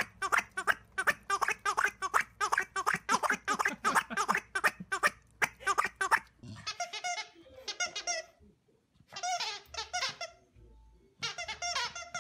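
Rubber squeaky dog toy squeaked rapidly, about three or four high squeaks a second for some six seconds. After a short gap come a few longer, wavering squeaks as a dog works the toy in its mouth.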